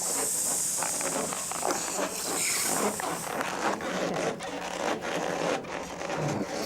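Inflated rubber balloons being rubbed and squeezed by hand: a busy run of short rasping rubs and squeaks, one brief squeal about two and a half seconds in.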